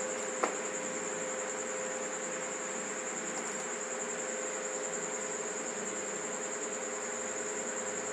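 Steady high-pitched whine over a faint low hum, with a small click about half a second in.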